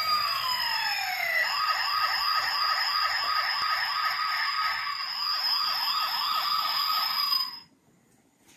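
Electronic police-style siren: a falling wail, then a fast yelp of about two and a half rising sweeps a second, cutting off suddenly near the end.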